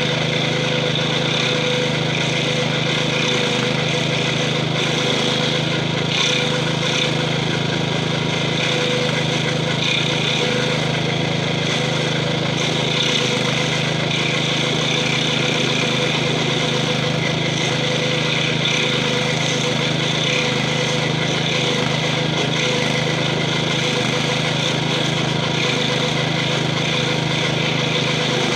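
Gravely 5640 walk-behind tractor's 12 hp Kohler engine running steadily under load, driving a stump-grinder wheel cutting into a tree stump.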